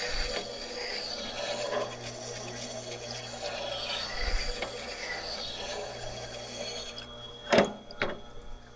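Steel bowl gouge in a sharpening jig being ground on a turning wet grinding wheel: a continuous rasping scrape over the grinder motor's low hum. The grinding stops about seven seconds in, followed by two sharp knocks.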